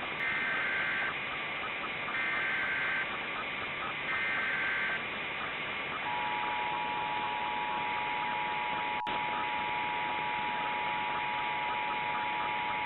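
Emergency Alert System signal over steady static hiss: three short bursts of warbling SAME data tones about a second apart, then the two-tone EAS attention signal sounding steadily from about six seconds in, with a single click partway through.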